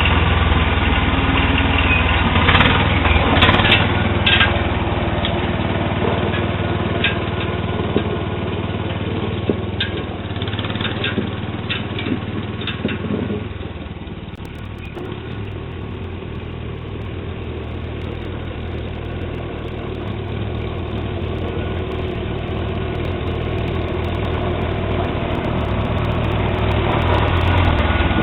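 Sears Suburban SS12 garden tractor engine running steadily while plowing snow, with a few clicks and knocks in the first half. The engine sound drops about halfway through, then grows louder again near the end.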